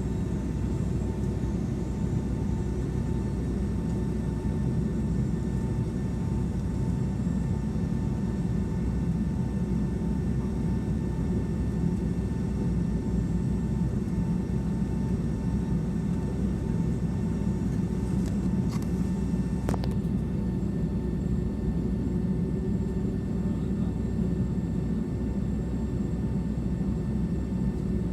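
Boeing 757-200 jet engines heard from inside the passenger cabin: a steady, even rumble with a faint thin whine above it. A couple of faint clicks come about two-thirds of the way through.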